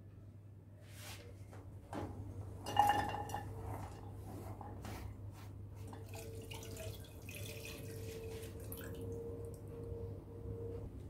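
Water poured from a measuring jug into a saucepan of sliced onion and chillies, splashing for several seconds. A sharp clink rings out about three seconds in.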